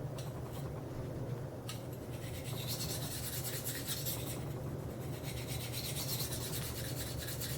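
Steel knife edge stroked freehand back and forth along a Spyderco Sharpmaker fine ceramic stone, a steady light scraping as the bevel is polished.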